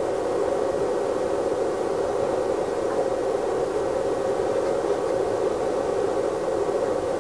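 A steady, even noise, strongest in a narrow low-middle band, with no distinct clicks.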